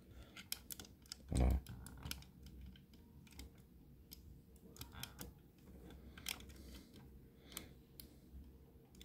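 Light plastic clicks and taps as fingers handle and fit the wheel-lift arm on a 1:50 scale model tow truck, with a dull bump about a second and a half in.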